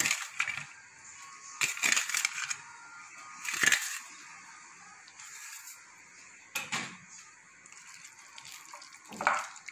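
Cauliflower florets being mixed by hand in a thick spice-and-flour batter: short wet, sticky bursts with pauses between, as the batter coats the florets before deep-frying.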